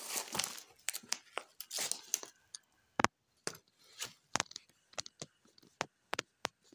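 Dry twigs and brush rustling and crackling as they are pushed aside close to the microphone: a dense crackle over the first two seconds, then a string of separate sharp snaps.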